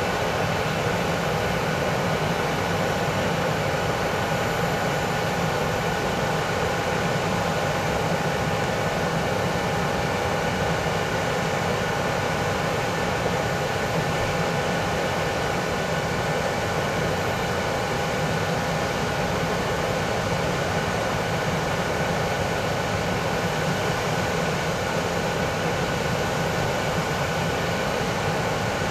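Boeing 737-800 jet airliner sitting on the stand with its machinery running: a steady jet whine over a constant rushing noise that does not spool up or down.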